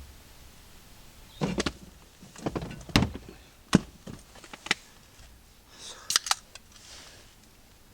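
A series of knocks, clicks and short rustles from gear being handled, with a sharp click about three and a half seconds in the loudest.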